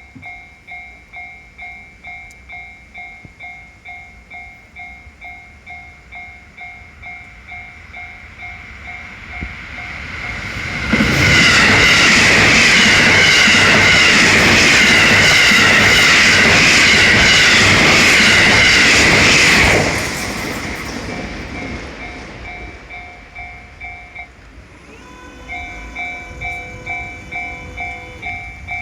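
Japanese level-crossing bell ringing its steady, evenly repeated "kan-kan". About eleven seconds in, an electric train passes; for some nine seconds its rumble and wheel clatter drown out the bell, which then rings on.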